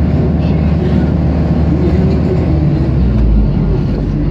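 Engine and road noise inside a moving car, a steady low rumble.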